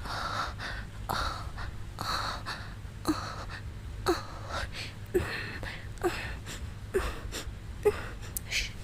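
A woman breathing heavily and rhythmically, about one breath a second, with a short voiced gasp on most breaths from about three seconds in.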